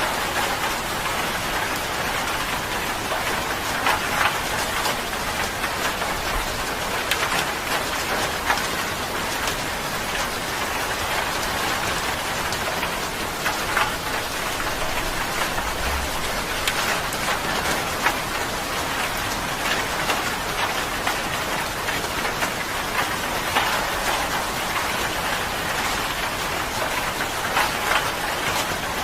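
Steady rain falling on a surface, an even hiss with many separate drops pattering through it.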